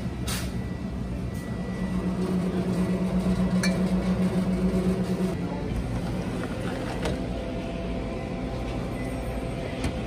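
Commercial glass-door drink cooler humming steadily. A louder droning hum swells from about two seconds in and drops back about five seconds in. A few light clicks come from the cooler door and the bottles being handled.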